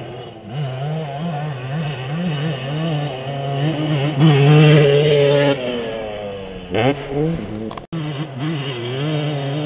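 250cc two-stroke motocross bike engine revving up and down as it is ridden around the track, its pitch rising and falling with each throttle change and loudest about halfway through. The sound drops out for an instant near the end.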